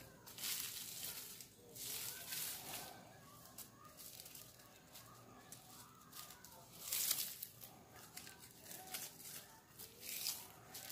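Plastic raffia strands rustling and swishing in short bursts as they are twisted by hand and rolled against bare skin into a cord for a spinning top; the loudest burst comes about seven seconds in.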